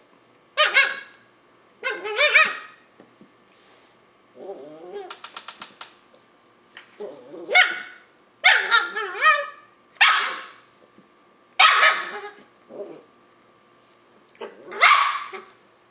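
A Löwchen puppy barking and yapping in short, high-pitched bursts spaced a second or more apart, with a low, rattling growl about four and a half seconds in. These are play barks aimed at getting a cat to play.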